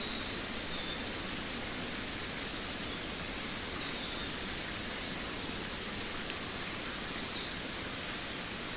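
Forest ambience: a steady hiss of background noise with a songbird singing short phrases of quick, high, descending notes a few times, loudest a little after six seconds in.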